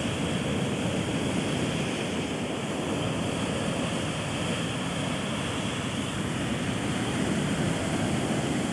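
Ocean surf breaking and washing on a beach: a continuous rush of water that swells slightly near the end.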